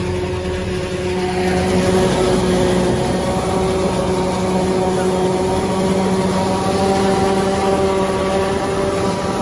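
Claas self-propelled forage harvester chopping standing corn at close range, blended with the engine of the tractor running alongside: a steady, unbroken machine drone with a held hum.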